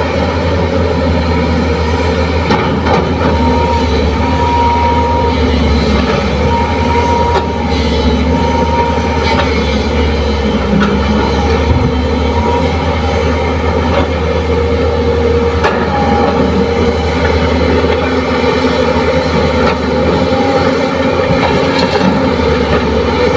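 Diesel engines of hydraulic excavators running steadily as they dig soil, a low, continuous drone with brief higher tones coming and going.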